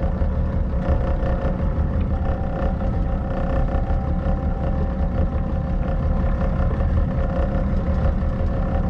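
A small pleasure boat's engine running steadily under way, with a constant low rumble and a steady hum.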